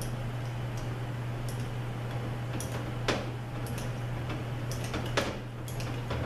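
Hand tap cutting 10-32 threads in a transmission clutch drum's rivet hole: scattered light metallic ticks, with two sharper clicks about three and five seconds in, over a steady low hum.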